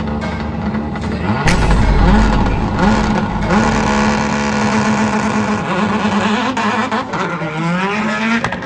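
Competition car's engine revving up and dropping back several times as it runs around the track. A deep boom comes in about a second and a half in.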